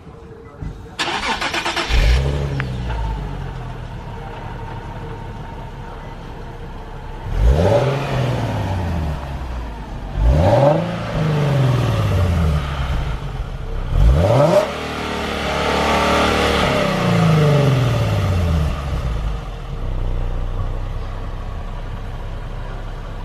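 Nissan 370Z's 3.7-litre V6 on its stock exhaust: cold-started about a second in, catching with a loud burst and settling to a fast idle. It is then revved three times in short blips and once more for longer, each time falling back to idle.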